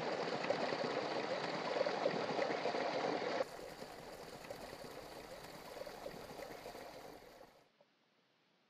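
Forest stream running. About three and a half seconds in, the sound drops suddenly to a quieter rush, which fades out a second before the end.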